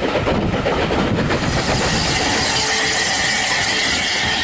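Train running on the track, heard from the window of a moving carriage, with a rhythmic wheel clatter. About a second and a half in this gives way to a steady hiss with a thin high tone as a steam locomotive goes by.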